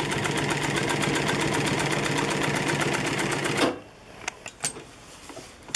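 Juki LU-562 industrial walking-foot sewing machine running at speed, stitching through folded denim in a fast, even rhythm over a steady motor hum. It stops abruptly a little over halfway through, followed by a few light clicks. This is a test seam to check the stitch after the top thread tension has been tightened.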